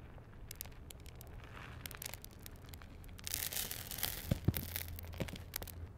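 Biting into and chewing a sandwich: crackly, tearing bites and crunches, densest about three to four seconds in.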